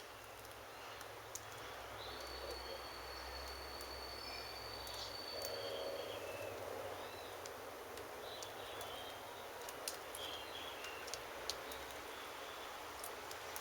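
Quiet outdoor ambience with faint, scattered bird chirps and light clicks, and a thin, steady high tone held for about three seconds near the start.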